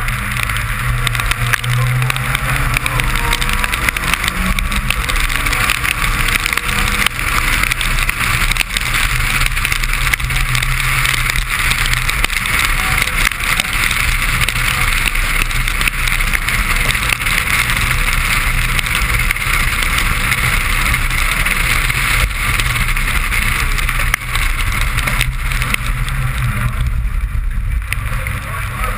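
Suzuki Swift rally car heard on board, its engine running at speed on a wet stage road with a steady loud hiss of tyres and water spray.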